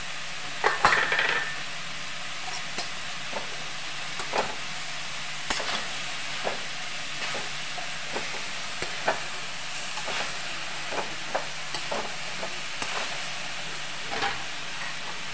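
Vegetables stir-fried in a metal kadhai: a metal spoon scrapes and clinks against the pan every second or so over a steady hiss of frying, with a louder clatter about a second in.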